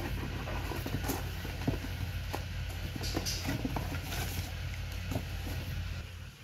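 A cardboard shipping box being opened and handled by hand: cardboard flaps and paper scrape and rustle in irregular crackles. A steady low hum runs underneath.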